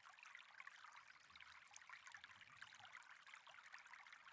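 Faint trickling of running water, a steady fine crackle with no distinct events.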